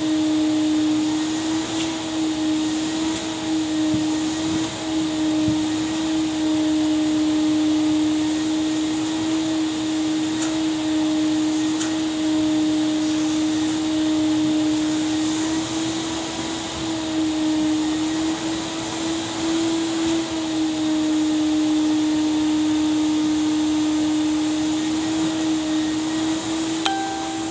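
Vacuum cleaner running steadily while vacuuming upholstered chairs: a constant motor whine over rushing air, its pitch wavering slightly now and then.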